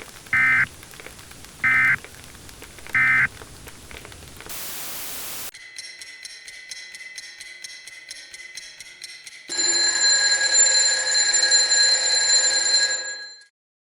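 Three short bursts of EAS digital data, the SAME end-of-message code that closes an alert, each about a third of a second long and spaced about a second and a quarter apart. Then comes a second of hiss-like noise, a few seconds of faint ticking with thin steady tones, and, from about ten seconds in until shortly before the end, a louder electronic sound made of several steady tones that stops abruptly.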